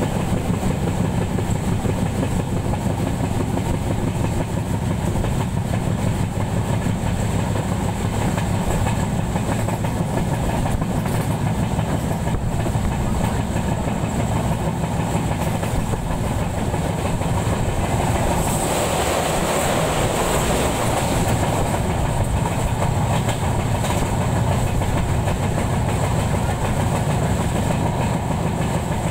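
Moving train running steadily: a continuous low rumble of wheels on rails. About two-thirds of the way through, a louder rushing noise swells for a few seconds, then falls back.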